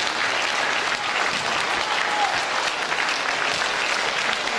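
Audience applauding steadily: dense, even clapping from a crowd.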